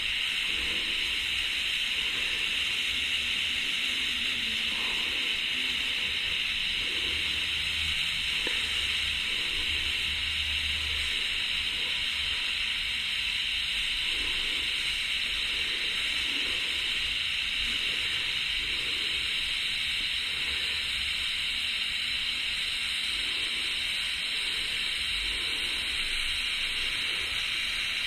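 Electric welding arc burning steadily on the ATV's swing arm, an even, continuous hiss with no breaks.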